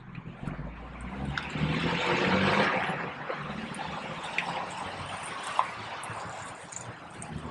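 Salt-water weed-killer mix sloshing inside a white plastic pump sprayer as it is handled and lifted, loudest a couple of seconds in, with a few light knocks from the sprayer's handle.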